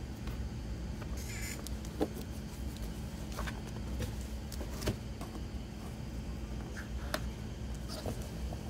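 Handling noise of a large hardcover book being opened and a loose photo print on its page being touched: a few soft, scattered taps and rustles over a steady low hum.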